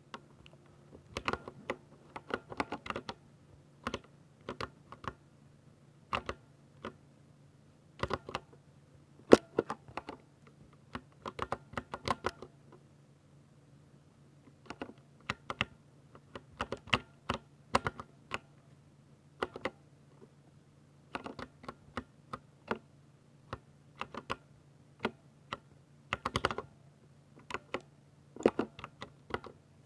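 Typing on a Ducky 60% mechanical keyboard with linear silver switches: irregular runs of quick key clacks broken by brief pauses, over a faint steady low hum.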